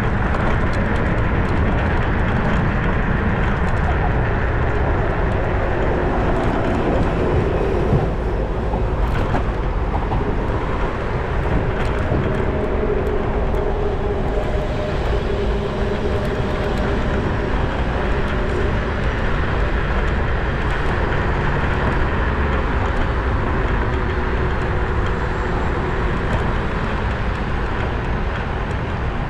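Steady riding noise from a handlebar-steered vehicle on the move: motor, tyre and wind noise with a faint drifting tone and a few light ticks. No squeak is heard; the rider reckons the sound is now more or less even after tightening the right handlebar grip and removing the front case and a rattling keychain.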